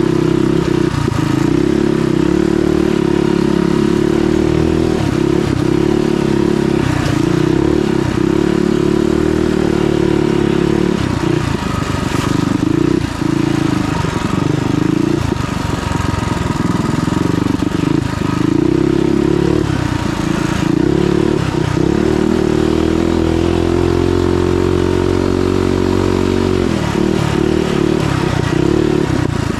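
Mini bike's small single-cylinder engine revving up and down under throttle while being ridden, its pitch repeatedly climbing and dropping, and holding lower and steadier for a couple of seconds near the end.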